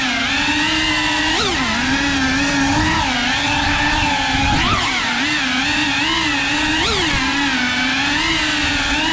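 3.5-inch cinewhoop FPV drone's motors and ducted propellers buzzing. The pitch wavers continually with small throttle changes and jumps up sharply in brief swoops about a second and a half in, near five seconds and near seven seconds.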